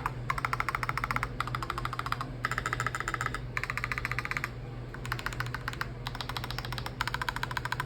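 Fast typing on a mechanical keyboard fitted with PBT dye-sub Cherry-profile keycaps: several bursts of rapid key clacks, each about a second long, separated by short pauses.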